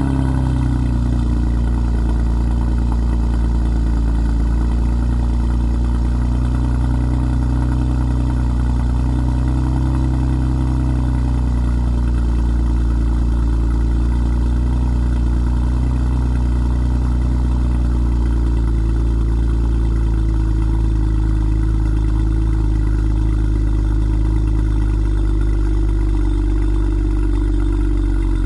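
BMW 335i's N54 twin-turbo inline-six idling steadily, heard at the quad tailpipes through Remus Race axle-back mufflers and catless 3-inch downpipes. The engine was started seconds earlier.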